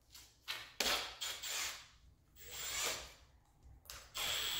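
The keyless chuck of a Milwaukee M18 compact brushless drill being turned by hand and tightened onto an impact socket adapter: several short bursts of rubbing and ratcheting clicks.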